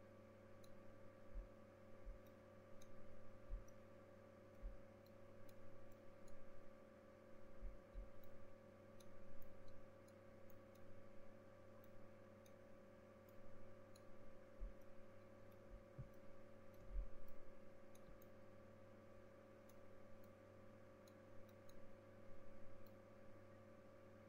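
Faint steady electrical hum with scattered small clicks and a few soft low knocks spread irregularly through it.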